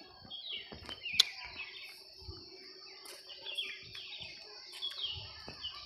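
Small birds chirping outdoors, many short quick calls overlapping throughout, over a faint steady hum. A sharp click about a second in.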